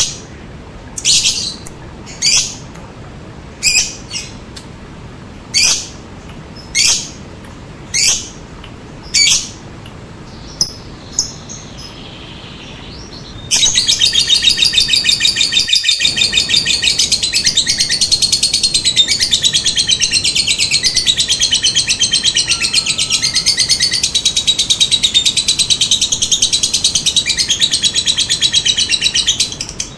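A lovebird giving short, sharp high chirps about once a second. Some 13 seconds in it breaks into a long, unbroken rapid chatter, the 'ngekek' trill, which runs about sixteen seconds and stops just before the end.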